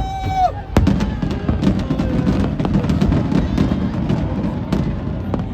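Fireworks bursting: a rapid, dense run of sharp bangs and crackles over a low rumble, starting about a second in. It is preceded by a brief held whistling tone.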